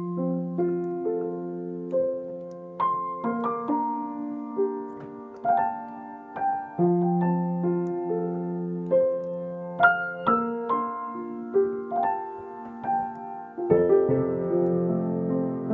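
Slow solo piano music: single melody notes struck and left to ring over held low notes, with a fuller, louder passage coming in near the end.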